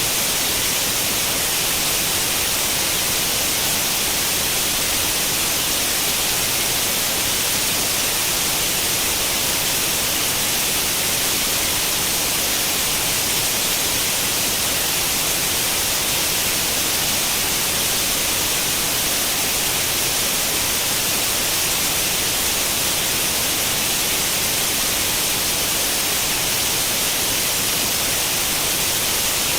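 Steady, unbroken hiss of white noise, like the static of an old tube television tuned to no channel. It is brightest in the high treble and does not change.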